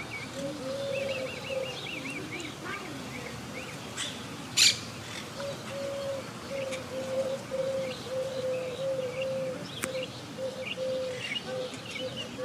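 Wild monk parakeets chattering in quick runs of short high chirps, with a low steady tone broken into short pulses through the second half. A sharp click about four and a half seconds in is the loudest sound, with a second, fainter one near the end.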